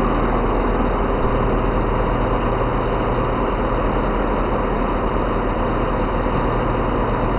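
Passenger multiple-unit train standing at a station platform, its onboard engines and equipment running in a steady, even hum.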